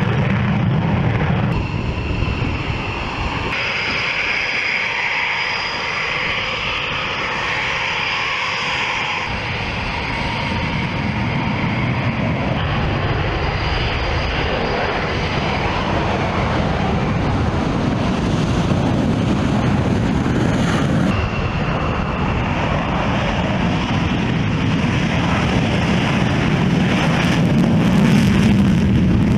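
Fighter jet engines at takeoff power: a Eurofighter Typhoon's steady loud rush with a high whine through the first half, thinning as it climbs away. After a sudden change about two-thirds through, an F-15's engines take over and grow louder with a deep rumble near the end.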